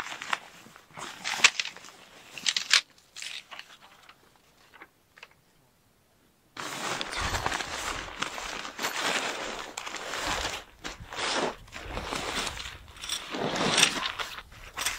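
Fabric rustling and crinkling as an Urbanside Protect 3+ car-camping tent and its ground sheet are pulled out of their carry bag: a few sharp rustles, a pause of a few seconds, then continuous rustling and handling of the fabric.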